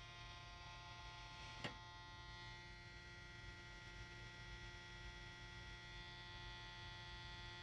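Near silence with a faint steady electrical hum, and one faint click about a second and a half in.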